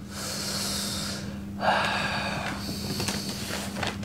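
A man's breathy noises of suppressed excitement through clenched teeth: two long hissing bursts in the first two and a half seconds, then lighter breaths.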